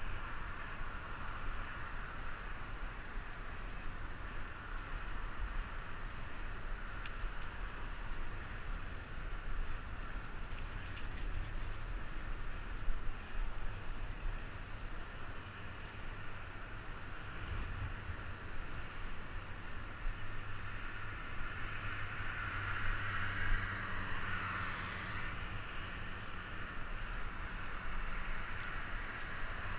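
Steady wind rush on a helmet-mounted camera's microphone while cycling, mixed with the hiss of expressway traffic alongside. The traffic noise swells for a few seconds about two-thirds of the way in, as a vehicle passes.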